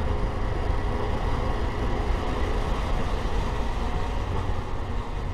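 Steady low rumble of a moving vehicle on the road: road and wind noise with a faint, even engine hum.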